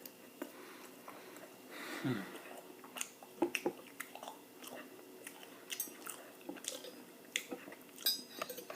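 Close-miked chewing and eating mouth sounds: scattered short wet clicks and smacks at irregular moments, with one slightly louder stretch about two seconds in.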